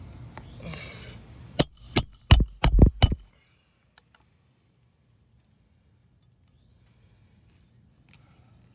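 A hammer striking a roofing nail: six quick, sharp blows in about a second and a half, driving a nail under a lifted asphalt shingle.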